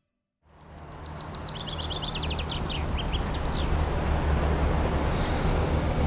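City street ambience fading in after a brief silence: a steady low hum of traffic, with a small bird chirping a quick run of short, high notes in the first few seconds.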